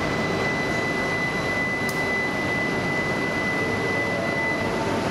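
A steady high electronic tone, held for about five seconds and then cut off, typical of a Shinkansen platform's departure signal, over the continuous hum of the station and the standing E2 series Shinkansen train.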